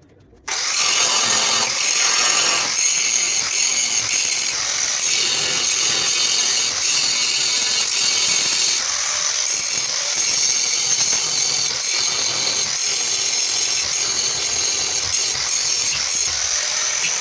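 Angle grinder grinding the rusted lower sheet steel of an old truck cab. It starts about half a second in and runs steadily under load.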